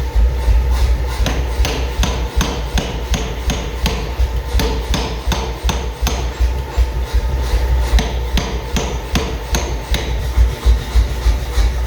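Hammer blows striking metal in a forge, a steady rhythm of about three sharp strikes a second, over a continuous low hum.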